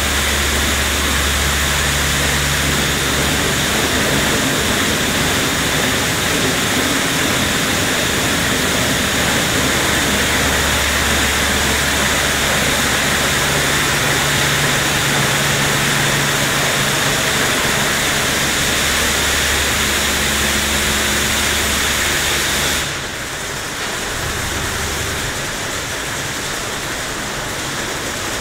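WashTec SoftCare2 rollover car wash running: spinning foamed-polyethylene brushes and water spray make a steady rushing hiss over a low motor hum that comes and goes. About 23 seconds in the hiss drops and the wash goes quieter.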